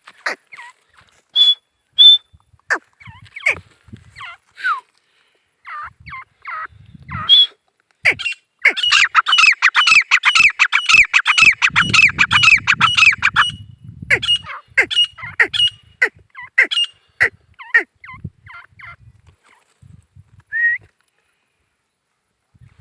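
Male grey francolin calling: sharp, high, repeated notes and short downward-sliding whistles, with a dense run of rapid calls lasting about five seconds starting some eight and a half seconds in.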